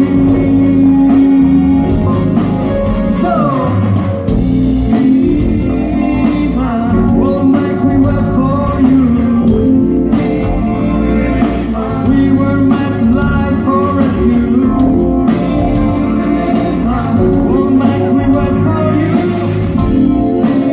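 Rock song: a singer over electric guitars with a steady drum beat.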